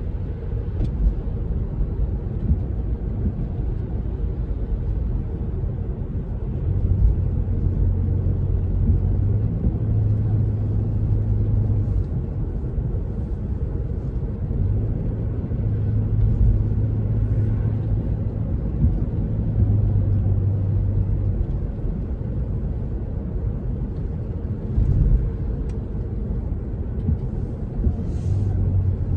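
Car driving on a wet road, heard from inside the cabin: a steady low rumble of road and engine noise, with a low hum that swells in and fades out several times.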